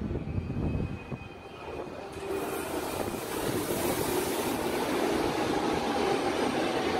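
Berlin U-Bahn train pulling into an underground station platform; its running noise grows steadily louder from about a second and a half in as the train enters.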